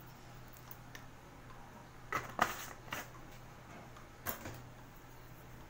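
A few light clicks and knocks of a plastic spoon against a plastic bowl as salt is added, the loudest cluster about two seconds in and single ones about three and four seconds in, over a faint steady low hum.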